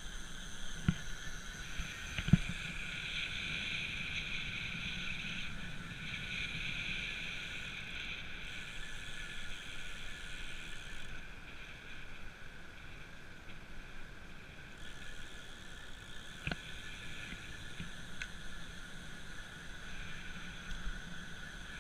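Recumbent trike rolling along a paved trail: steady running noise from the tyres and drivetrain, with a few sharp knocks, the loudest about two seconds in.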